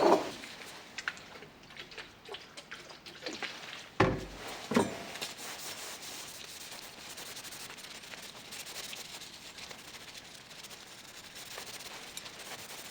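Objects being handled: a knock at the start and two more about four and five seconds in, with small clicks and faint rubbing between.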